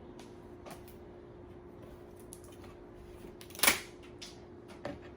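Light clicks of rubber bands being handled on a whole watermelon, with one short sharp snap a little over three and a half seconds in as a band is let go onto the rind.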